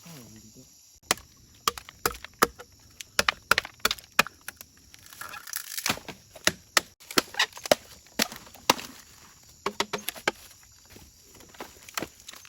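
Bamboo being chopped: a string of sharp, irregular chopping strikes, with a brief splitting or rustling noise about halfway through.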